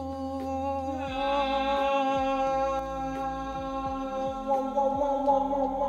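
A single voice singing one long, held 'ahh' note, a mock heavenly chorus, getting fuller and louder about a second in.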